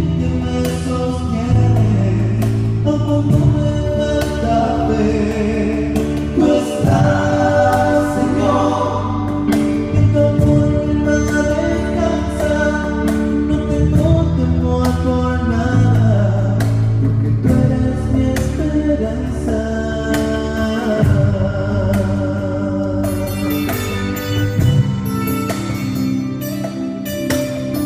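Live band playing a worship song with voices singing over it, with steady low notes and frequent drum strikes throughout.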